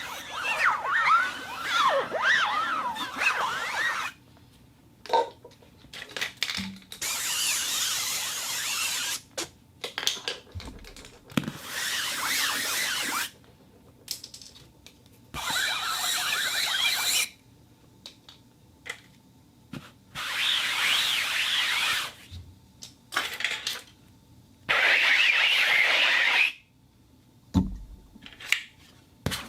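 Fabric being rubbed and rustled in about six separate passes of two to four seconds each, with short pauses and small knocks and clicks between them.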